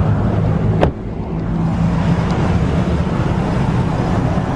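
Car engine idling steadily, with one sharp knock about a second in.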